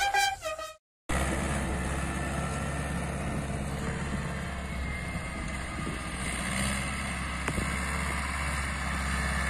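Ursus tractor's diesel engine running steadily under load as it pulls a cultivator across ploughed soil. It comes in about a second in, after the end of a music track fades out and a brief silence.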